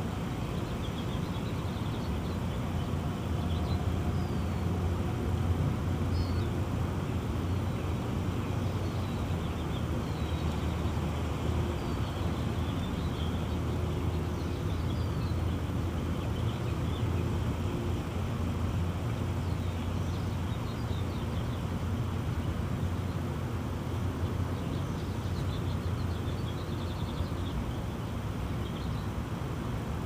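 Outdoor air-conditioner condensing unit running: a steady low hum from the compressor and condenser fan with even fan noise over it.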